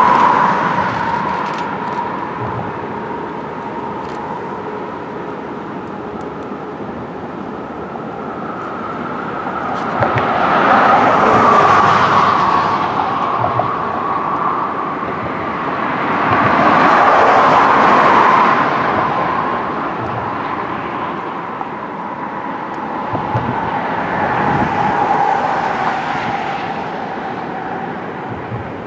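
Road traffic: a steady hum with three vehicles passing in turn, one after about eleven seconds, one about halfway through and one near the end.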